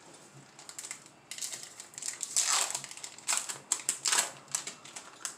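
Yu-Gi-Oh! booster pack and its trading cards being handled: a string of short, crisp rustles and scrapes of foil wrapper and card stock.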